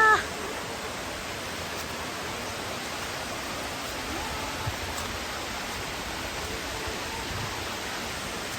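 Steady rushing of water from a mountain waterfall, an even hiss with no change in level. A short pitched call, with a stack of overtones, cuts off just as it begins.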